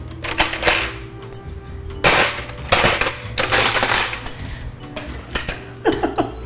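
Metal cutlery clattering and clinking in a kitchen drawer as forks are picked out, in several short bursts of rattling.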